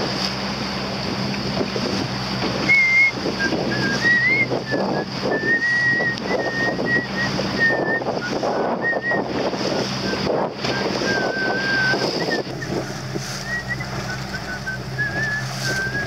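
Wind buffeting the microphone and water rushing past a boat underway on choppy sea, over a steady low hum. A thin, wavering high whistle runs from about three seconds in.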